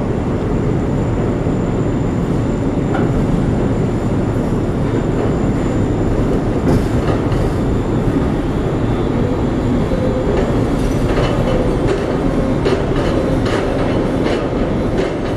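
Container gantry crane running: a loud, steady heavy mechanical rumble, with irregular metallic clacks from about halfway through.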